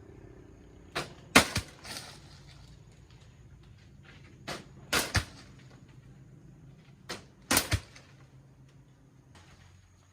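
Sharp chopping strikes of a blade hacking at plant stems, in three quick clusters of two to four blows about three seconds apart.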